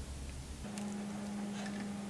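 A steady low hum that switches abruptly to a higher steady hum about a third of the way in, followed by a few light, sharp ticks and clicks.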